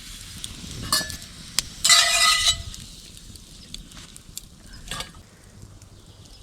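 Flatbreads frying in a pan over a campfire: a faint sizzle with scattered sharp crackling clicks. About two seconds in comes one loud, ringing scrape lasting about half a second.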